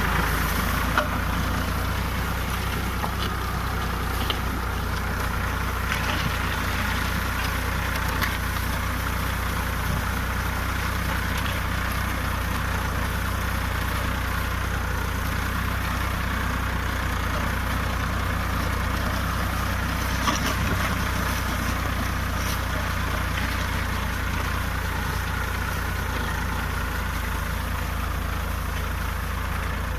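Tractor engine running steadily with a deep low drone while pulling a plough through the soil.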